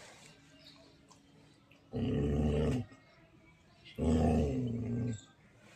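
A dog growling: two long, low growls of about a second each, the second starting about four seconds in.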